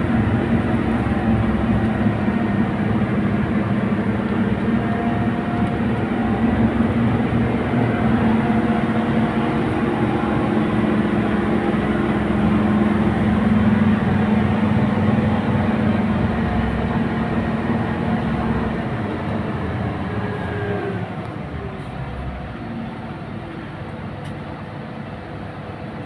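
Tour bus engine and road noise heard inside the passenger cabin: a steady, low drone that eases off and grows quieter about twenty seconds in.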